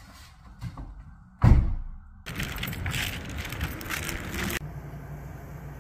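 A car door shuts with one heavy thud. A couple of seconds of outdoor street noise follow, cutting off suddenly into a steady low hum.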